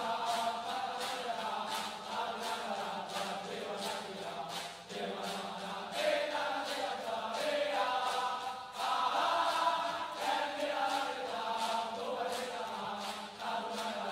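A large group of male military cadets chanting and singing a song in unison, over a steady beat of sharp hits.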